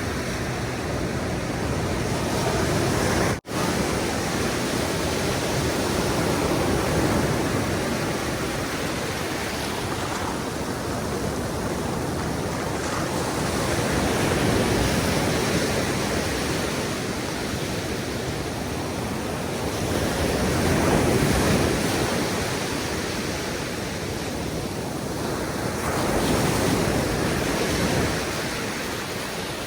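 Ocean surf washing onto a beach: a steady rush of noise that swells and eases every several seconds as the waves break and run up. The sound cuts out for a split second a little over three seconds in.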